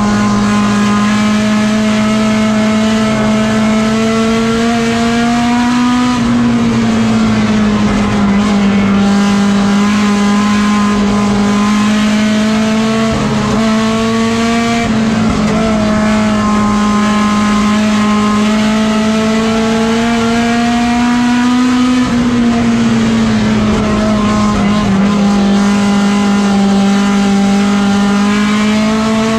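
Stock car race engine running hard at high revs, heard from inside the cockpit. The pitch creeps up and falls back roughly every eight seconds as the driver lifts and gets back on the throttle.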